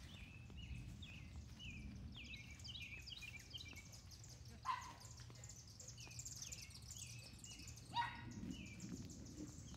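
A Catahoula dog barks twice, faintly, about five and eight seconds in, over birds chirping in quick, repeated falling notes.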